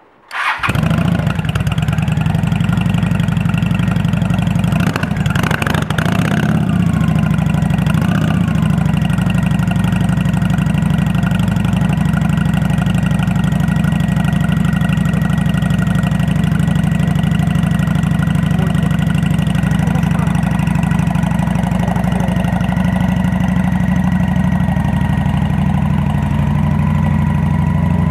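Honda Black Widow 750's V-twin with Cobra aftermarket exhaust starting up, catching at once, then idling steadily and loudly through the chrome pipes. A brief uneven patch in the idle about five to six seconds in.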